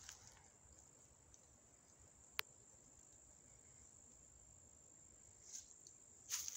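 Near-silent woods with a faint, steady high-pitched whine throughout. A single sharp click comes about two and a half seconds in, and there is a brief rustle near the end.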